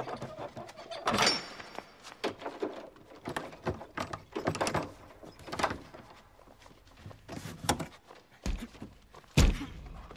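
Irregular scuffling, rustling and knocking as a body and clothing bump against a wooden cabinet panel, ending in two heavy thumps near the end, the second the loudest.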